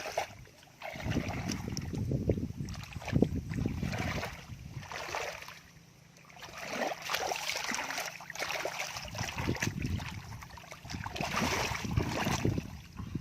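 Muddy water sloshing and splashing in irregular bouts as hands work through a flooded, muddy field.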